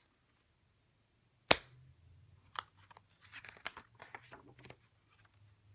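A single sharp hand clap about one and a half seconds in, followed by soft rustling and small clicks as a hardcover picture book's page is turned.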